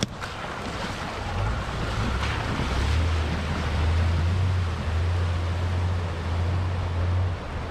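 Rushing river water, with a steady low rumble that sets in about a second and a half in and a short click right at the start.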